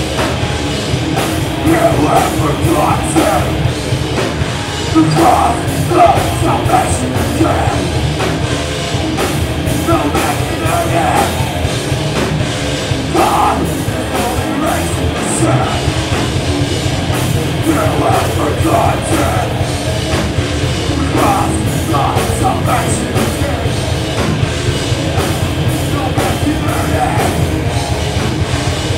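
Live heavy rock band playing loud and without a break: distorted electric guitars, bass and a pounding drum kit with crashing cymbals, with a vocalist shouting into a microphone at times.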